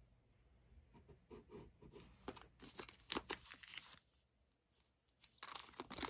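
Plastic packaging and bubble wrap crinkling and rustling as packaged notebooks and cards are handled. The sound comes in two spells of irregular crackles with a short pause between.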